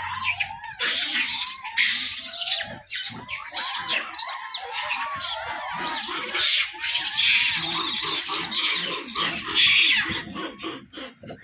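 A large troop of rhesus macaques calls constantly while feeding together: many overlapping short arching squeaks and repeated harsh screams, loudest about ten seconds in.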